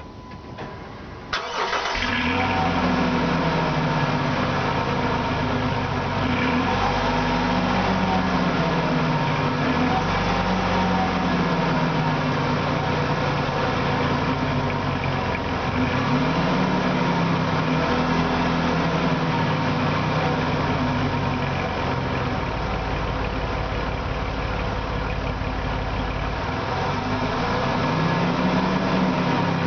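2009 Dodge Dakota's stock 3.7-litre V6 starting about a second in, then idling, with several short light revs that rise and fall in pitch.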